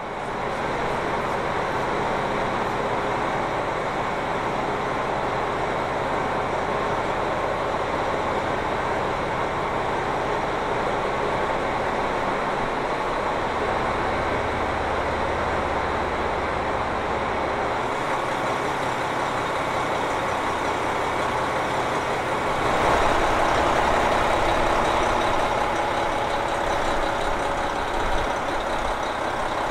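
KiHa 261 series diesel express railcar standing at a platform with its diesel engine idling: a steady engine and machinery hum. The low note shifts around halfway through, and the noise grows louder about two-thirds of the way through.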